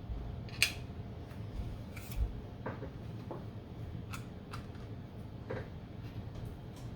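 Sparse small clicks and taps, about seven of them at uneven spacing, from small electronic parts being handled and set down on a workbench. A steady low hum runs underneath.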